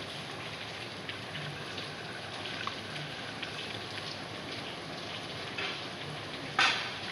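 Heavy rain falling steadily, with scattered drops ticking close by and one loud sharp tap near the end.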